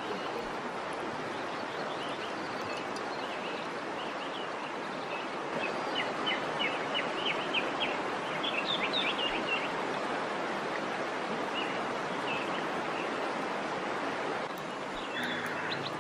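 Steady rush of the Ouzoud waterfalls, with birds chirping in quick runs of short calls around the middle.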